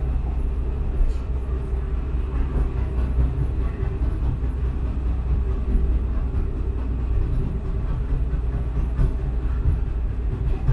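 Tram running along street track, heard from inside the car: a steady low rumble with a faint hum and a couple of light clicks.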